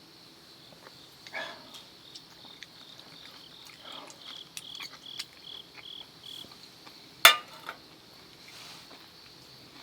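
Crickets trilling steadily, with a run of about eight quick chirps in the middle. Light clicks of tableware through it, and one sharp clink a little over seven seconds in.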